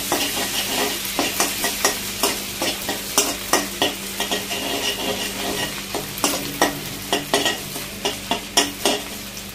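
Ginger-garlic paste sizzling in hot oil and butter in a metal kadhai, while a metal spoon stirs it and clinks and scrapes against the pan several times a second, irregularly.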